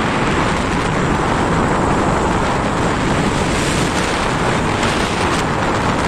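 Steady, loud wind noise buffeting the microphone of a moving motorbike, with the rush of the ride underneath.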